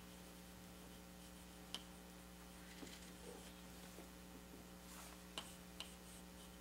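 Near silence: room tone with a steady low electrical hum and a few faint clicks or taps.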